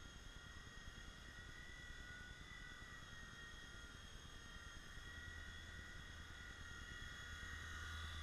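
WL911 micro RC helicopter's small electric motors giving a faint, steady high whine with a rotor hum, growing louder near the end as it flies close.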